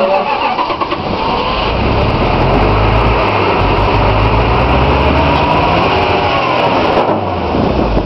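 Pickup truck engine revving hard under load as the truck climbs a steep rock ledge. It builds up about a second and a half in, holds loud with a wavering pitch, and eases off near the end.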